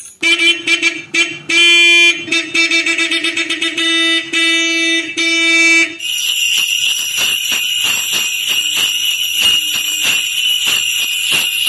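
A sound effect played through a speaker: a horn honks over and over for about six seconds, then gives way to a shrill, continuous ringing alarm with a rapid rattle running through it.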